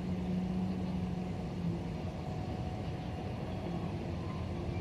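A motor running steadily: a constant low hum of unchanging pitch over a low rumble.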